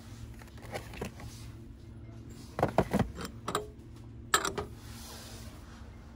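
Pressed-glass bowls and cups clinking and knocking against each other as they are picked up and handled, a quick cluster of clinks about two and a half to three and a half seconds in and one loud, briefly ringing clink a little after four seconds.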